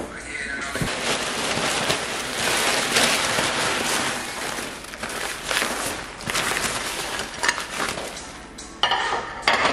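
Crumpled packing paper rustling and crackling as it is pulled out of a cardboard box and unwrapped from an item, with a couple of sharper crinkles near the end.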